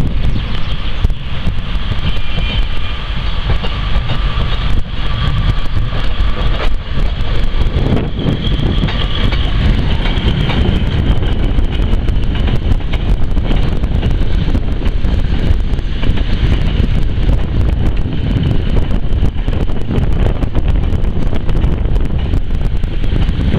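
Northern Rail diesel multiple unit running in along the platform, with wind buffeting the microphone.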